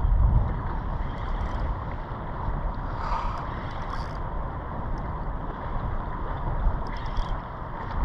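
Wind buffeting the microphone with a steady low rumble over choppy sea water lapping at a kayak, with a few faint clicks about halfway through and near the end.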